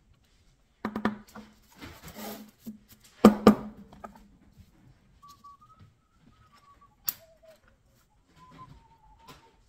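Metal putty knife knocking and scraping against the panel and table: a few knocks, a short scrape, then two sharp clatters about three seconds in as it is set down. Later a faint thin whistle glides slowly downward in pitch, with a single light tap in between.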